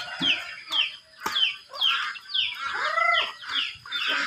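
Chickens calling: a steady run of short, high, falling peeps about three a second, with a hen's clucks near the end. A single sharp knock about a second in.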